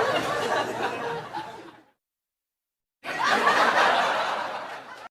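Laughter fading away, then dead silence for about a second, then a fresh burst of laughter that starts abruptly and fades before it is cut off.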